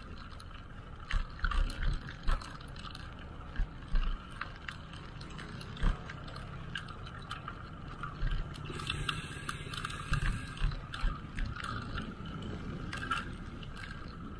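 Bicycle in motion on a paved road: irregular clicks and rattles from the bike's parts over a steady bed of road and wind noise, with a brief hiss about nine seconds in.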